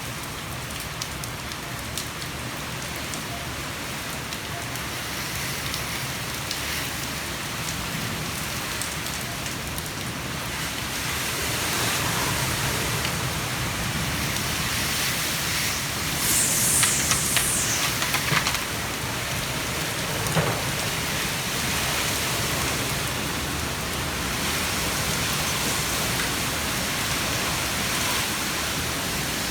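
Heavy rain and wind of a thunderstorm gust front as one steady rush of noise, growing louder about twelve seconds in. About sixteen seconds in comes a short burst of sharp clattering, and a few seconds later a single thump.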